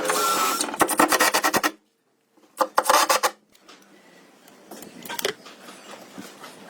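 Fast rhythmic scraping on wood, in two bursts of about a second each with a sudden silent break between them, then fainter scattered rubbing.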